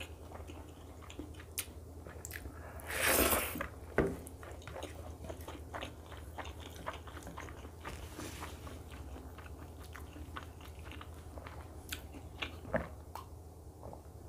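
Close-miked chewing of a hand-fed mouthful of rice and egg curry: many small wet mouth clicks and smacks. One louder, hiss-like noise lasts about half a second, about three seconds in, and a steady low hum runs underneath.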